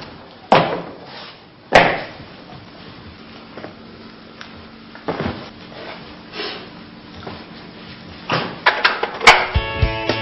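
Scattered knocks and thumps of household things being picked up, moved and set down while tidying a room, the sharpest about two seconds in and a quick cluster near the end. Guitar music comes in just before the end.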